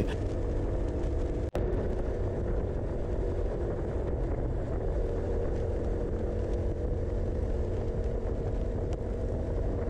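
Motorcycle engine running at a steady cruise, with wind and road noise, heard through the bike-mounted camera. The sound cuts out for a moment about a second and a half in.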